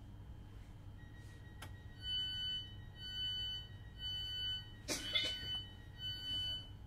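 Electronic warning beeps inside a Class 321 electric train carriage: a short two-tone beep repeated about once a second, four times, over the carriage's low running hum. A sharp knock falls between the third and fourth beeps.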